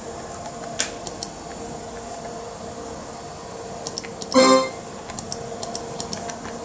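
Mouse button clicking a few times on a Power Macintosh 7300/200, then a short pitched electronic beep from the computer's speaker about four and a half seconds in, over a steady background hum.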